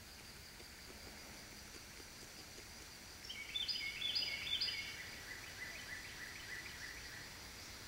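A songbird singing about three seconds in: three quick phrases of falling notes, then a run of softer repeated notes, over a faint steady outdoor hiss.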